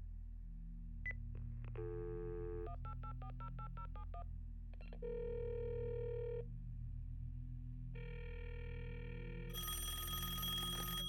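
A telephone call going through over a low steady drone: a click and a short tone, a quick run of touch-tone dialing beeps, then two ringing tones on the line, and near the end a telephone bell ringing.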